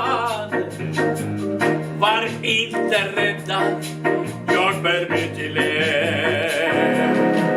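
Music: a Christmas hymn with keyboard accompaniment, with a voice singing with vibrato over sustained low chords.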